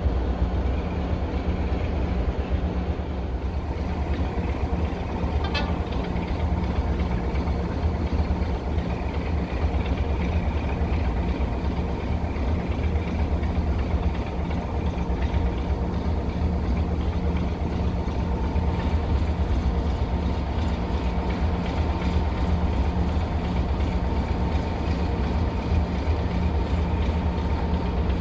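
Diesel engine running steadily: an even low rumble with a faint whine near 1 kHz, from a first-generation diesel multiple unit drawing slowly into the station.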